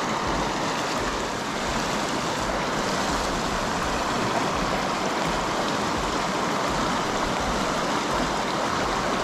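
Steady rush of a river's flowing water, unchanging throughout.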